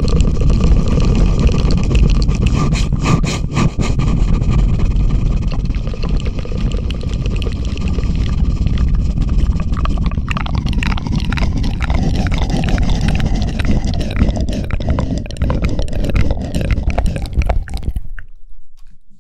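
Close-miked ASMR 'helicopter' trigger: a loud, continuous rumbling with a scraping texture. Fast crackling clicks come in about halfway through, and the sound cuts off abruptly a second before the end.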